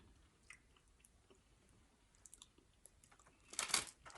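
Close-up chewing of fried food: small wet mouth clicks and crunches, with one louder crunch a little before the end.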